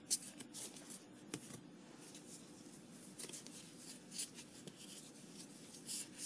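Flesh and Blood trading cards being thumbed through by hand, their edges sliding and flicking against each other in faint, scattered soft clicks and rustles.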